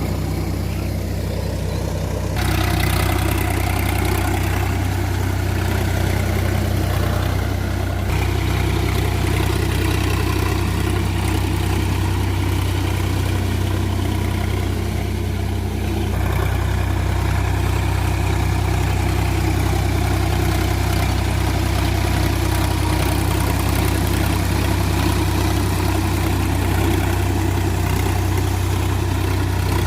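Sonalika DI-47 RX tractor's diesel engine running steadily while working with a Shaktiman rotavator. The tone shifts abruptly a few times, about two seconds in, near eight seconds and about halfway through.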